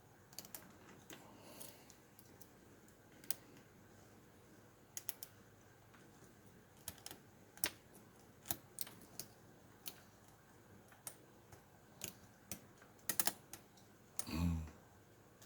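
Lock pick working the pins of a pin-tumbler lock under tension: sparse, irregular small clicks, a few close together near the end. A brief low sound, the loudest thing here, comes just before the end.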